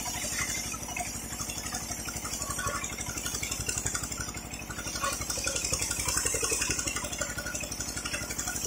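Engine of a portable circular-blade sawmill running steadily with an even low pulse while the blade saws along a teak beam; a high hiss of cutting grows stronger around the middle.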